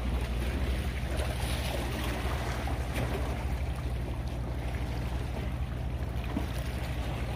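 Steady outdoor ambience: a continuous low rumble under a hiss of wind and lapping water, with no distinct events.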